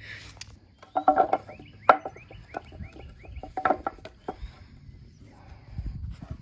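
Chickens clucking in short calls, with a small bird chirping in a quick series of short rising notes behind them and a few sharp knocks.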